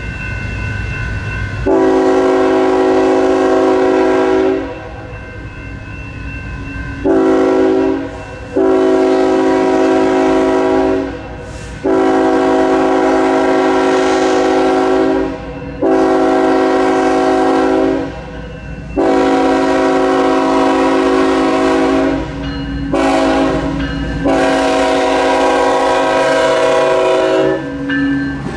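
Air horn of a BNSF GE ET44C4 diesel locomotive sounding about eight long and short blasts, the grade-crossing warning, as the train nears the crossing. Under the horn the locomotive's diesel engine rumbles, growing louder near the end as the lead unit passes close by.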